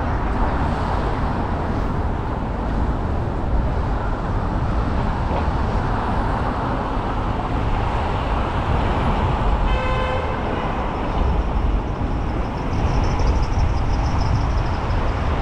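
City street traffic noise heard from a moving car, a steady low rumble of engines and tyres. About ten seconds in, a car horn gives one short toot.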